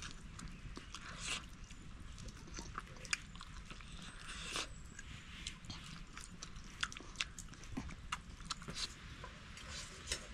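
Close-up chewing and eating sounds: irregular small crunches and wet clicks.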